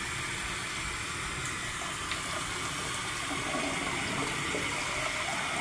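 Bathroom sink faucet running a steady stream into the basin, the water draining freely down a drain that has just been cleared of a water bottle cap.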